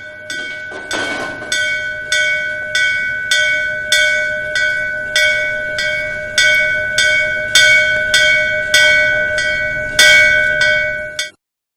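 A brass temple bell is struck again and again at an even pace, about one stroke every 0.6 seconds. Each stroke rings on into the next at the same pitch. The ringing stops abruptly just before the end.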